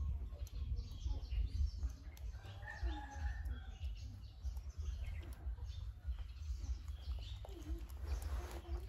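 Close-up soft crackle and rustle of a macaque's fingers picking through a man's hair, over a steady low rumble. Birds chirp now and then in the background.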